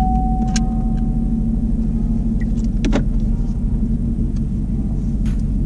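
Chevrolet Camaro idling, heard from inside the cabin as a steady low rumble. A steady high tone stops just over a second in, and there are a couple of light clicks.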